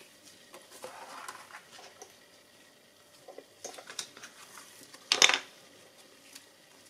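Sheets of heavy glossy paper being handled with gloved hands: light rustles and small taps against a hard countertop, with one louder, brief rustle of the stiff paper about five seconds in.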